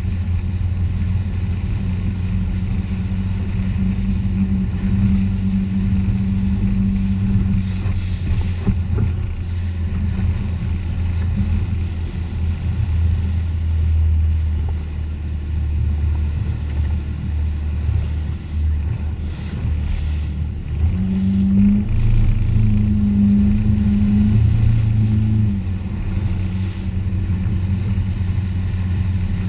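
Motorboat running at speed: a steady low engine drone with water rushing and splashing against the hull, heard close from the bow of a 1989 Seaswirl Tahoe. From about two-thirds of the way through, a second engine note joins for a few seconds as the other boat runs alongside.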